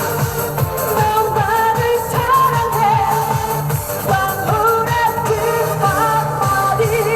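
Trot song performed live: a woman singing a wavering melody over a backing track with a steady beat.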